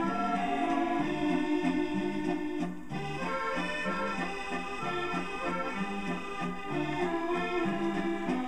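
Accordion music playing from an old 78 rpm shellac record on a portable record player. It comes through the player's built-in speaker, with held melody notes over a bass line in an even beat.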